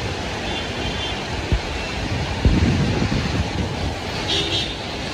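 Steady hiss of heavy rain and car tyres on a wet road, with wind buffeting the microphone and a couple of low bumps about halfway through.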